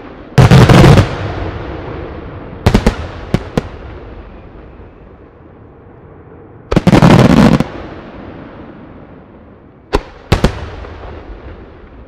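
Aerial firework shells bursting: two long volleys of dense, loud bangs, about a second in and about seven seconds in, with single sharp reports between them and near the end, each followed by an echoing rumble that dies away.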